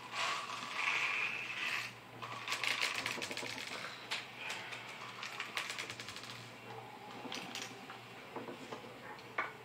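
Small hard clicks and light rattles of brass shotgun shells and loading parts being handled on a wooden table, with a quick run of rapid clicks a few seconds in.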